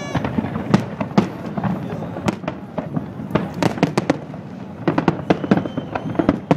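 Fireworks display: aerial shells bursting in an irregular run of sharp bangs, at times several a second and bunched in quick clusters.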